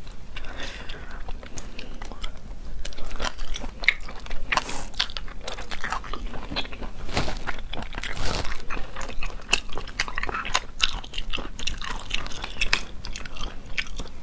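Close-miked eating of cooked sea snails: chewing and biting of the snail meat, with many short clicks from the shells and the toothpick used to pick the meat out.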